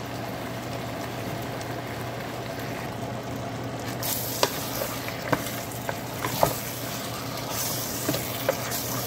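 Chicken, white beans and butter sizzling in a metal pot on the stove. About four seconds in, a wooden spatula starts stirring the stew, knocking sharply against the pot several times.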